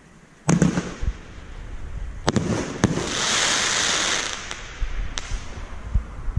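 Hop Kee Hotsy Totsy 15-shot consumer fireworks cake: a shell bursts with a loud bang about half a second in, then more sharp reports, a dense crackle lasting about a second and a half from the bursting stars, and a few scattered pops near the end.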